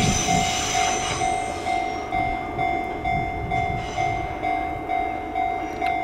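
Level-crossing bell ringing steadily, one tone repeating about twice a second, while a Kintetsu electric train runs past over the crossing, its rumble and whine fading in the first couple of seconds.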